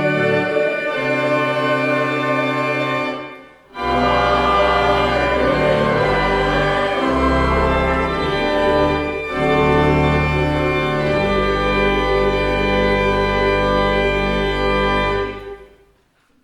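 Organ music: held chords over a sustained bass, with a brief break about three and a half seconds in, then the final chord dying away shortly before the end.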